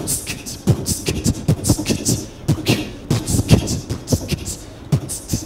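Beatboxing: a rhythm of mouth-made kick, snare and hissing hi-hat sounds, a few hits a second, kept going while a paper ball is passed through the audience.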